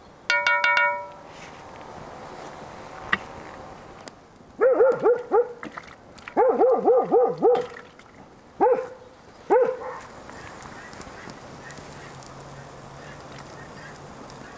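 Geese honking in several quick runs of calls in the middle, each honk rising and falling in pitch. Near the start, a quick run of ringing metal taps.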